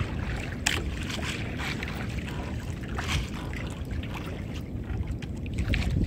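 Wind buffeting the microphone on a small fishing boat at sea, a steady low rumble, with water splashing and a few sharp knocks.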